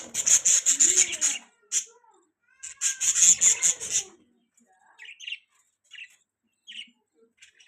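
Budgerigars chirping: two loud bursts of rapid, high chatter in the first half, then a few softer, scattered chirps.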